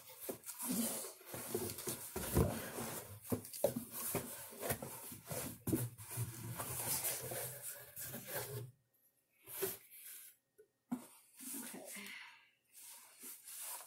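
Cardboard rubbing, scraping and knocking as a smaller box is worked out of a larger shipping box: a dense run of quick handling noises for most of the time, thinning to a few separate bumps and rustles near the end.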